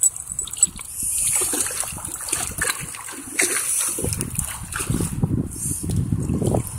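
Boots wading through shallow, muddy pond water, splashing and sloshing, louder from about four seconds in.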